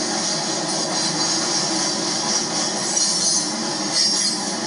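Freight train of hopper cars rolling past close by: a steady, unbroken noise of steel wheels running on the rails, strongest in the high hiss.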